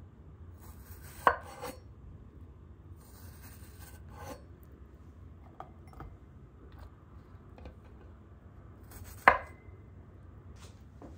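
Cleaver chopping through strawberries onto a wooden cutting board: two sharp knocks, about a second in and near the end, with a few lighter taps and the rubbing of fruit on the board between.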